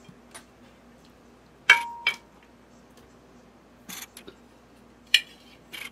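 Glass blender jar and its lid being handled on a countertop. A sharp clink with a short ring comes a little under two seconds in, then a lighter knock. Softer knocks follow, and another sharp clack comes about five seconds in.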